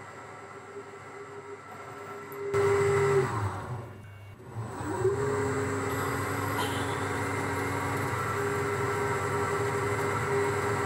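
Boxford metalworking lathe running, a steady whine over a low hum. A little over three seconds in it runs down, and near five seconds it starts up again and settles, turning the workpiece while a twist drill in the tailstock feeds into it.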